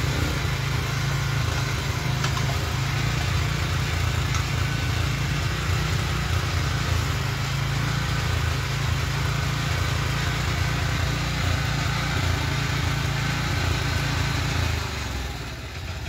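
An engine running steadily at a constant speed, dropping off and getting quieter near the end.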